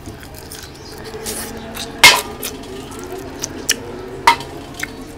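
Close-up eating of curry and rice: soft wet mouth and hand sounds with a few sharp clinks against a plate, the loudest about two seconds in and another just after four seconds.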